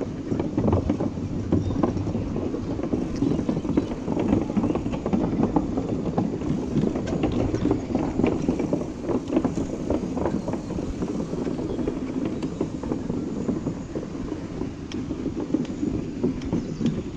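Mountain bike tyres rolling over the wooden planks of a suspension footbridge, a steady rumble with a dense run of knocks and rattles as the loose deck boards clatter under the wheels.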